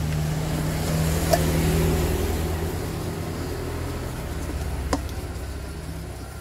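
A motor vehicle passing on the street: a low engine hum that swells about a second and a half in and then fades away. Two light knocks, a spoon against a metal bowl, come through over it.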